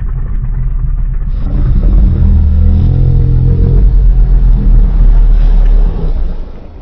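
A deep, fan-made dinosaur roar, made by slowing down a juvenile roar to lower its pitch. It swells about a second in, stays loud and low, and fades out near the end.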